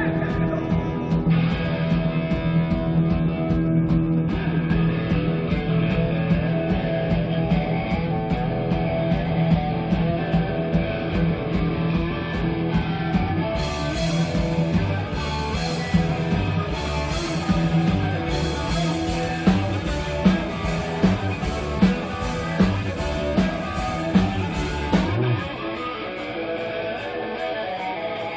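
Rock band playing live, instrumental: electric guitar and bass holding sustained notes, then crashing cymbals and heavy drum hits come in about halfway. Near the end the bass and drums drop out, leaving guitar with a steady light tick.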